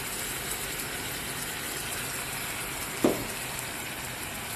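Chopped chicken frying in oil in a pan, a steady sizzle, with one short knock about three seconds in.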